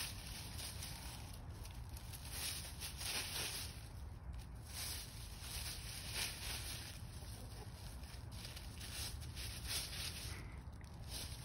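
Hens scratching and pecking through dry fallen leaves: an irregular crackling rustle of leaf litter, over a steady low rumble.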